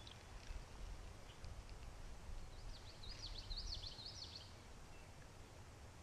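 A songbird singing a quick run of high notes that rise and fall, lasting about two seconds in the middle, over a low rumble.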